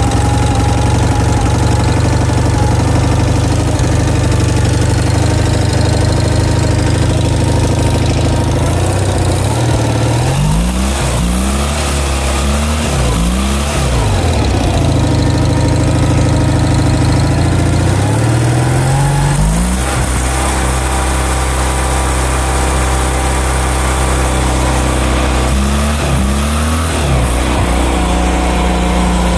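Onan CCK air-cooled two-cylinder engine running on a prototype downdraft-carburetor fuel-system upgrade, idling steadily. Its throttle is blipped up and back down several times in the middle and once more near the end.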